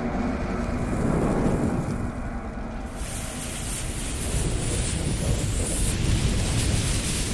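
Logo-intro sound effects of a burning fuse and flames: a steady low rumble with hiss, the hiss turning brighter about three seconds in.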